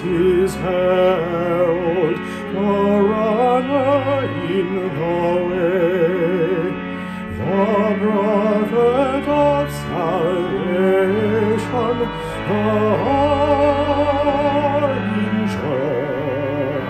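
Male solo voice singing a canticle with vibrato, accompanied by organ holding sustained chords.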